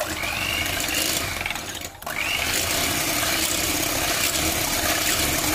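Electric hand mixer running, its twin beaters whisking a thin mixture of eggs, milk and sugar. The motor whines up to speed at the start, drops out briefly about two seconds in, then spins up again and runs steadily.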